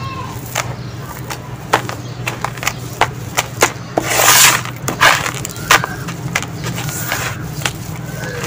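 Hands crumbling and dropping gritty sand mixed with small gravel in a tub: a run of sharp crunching clicks as grains and pebbles fall and knock together, with a louder gritty rush about four seconds in as a hand sweeps through the mix. A steady low hum runs underneath.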